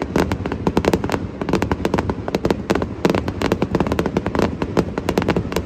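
Aerial fireworks bursting in rapid succession: a dense, unbroken run of bangs and crackles, several a second.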